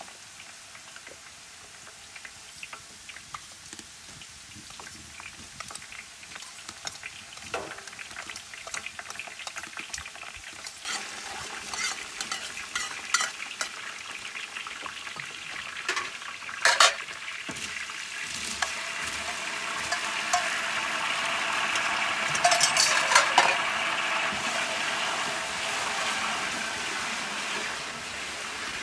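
A metal spoon stirring and knocking against a large aluminium pot of noodles frying in oil. About eleven seconds in, a sizzle starts and builds to its loudest in the second half, with sharp clinks of the spoon on the pot over it.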